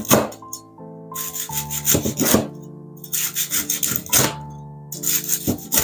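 Steel cleaver slicing through the crunchy cornstarch crust of a fried chicken thigh, a crackling crunch with each of about three slow cuts, each ending in a knock of the blade on the bamboo cutting board. Soft background music plays underneath.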